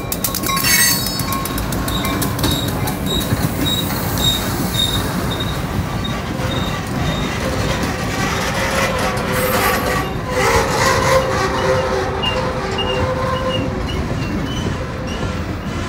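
Freight train passing: a steady rumble of steel wheels on the rails, with thin high wheel squeals coming and going as the cars take the curve.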